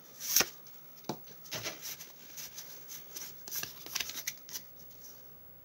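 Pokémon booster pack foil wrapper crinkling as it is torn open, with the loudest crackle about half a second in, followed by a run of soft slides and flicks as the trading cards are moved through the hands.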